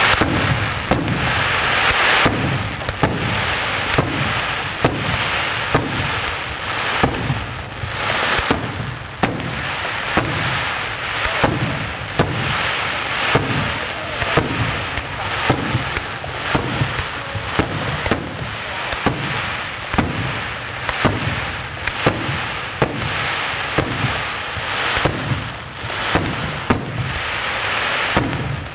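Aerial firework shells from a St. Mary Fireworks display bursting in quick succession, a sharp bang about every second, over a continuous noisy wash between the bangs.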